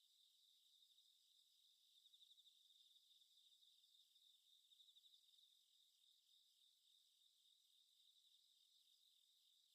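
Very faint crickets chirping in a steady, even pulsing rhythm: a night ambience.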